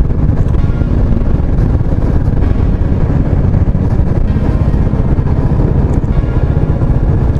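Motorcycle riding at speed: the engine runs steadily under heavy wind rumble on the action-camera microphone.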